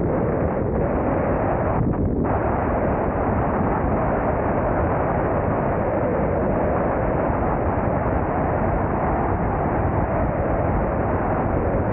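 Wind rushing over the camera's microphone on a moving car, with the car's engine and road noise underneath: a loud, steady roar.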